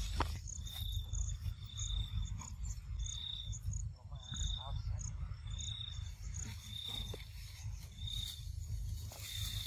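Insects chirping: a short, high note repeated about once a second, over a steady low rumble.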